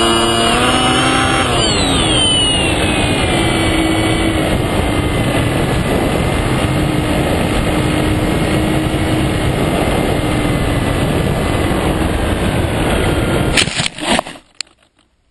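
An FPV plane's electric motor whines and drops in pitch as it slows, then wind rushes over the onboard camera as the plane glides in. The plane lands in grass with a few thumps about a second and a half before the end.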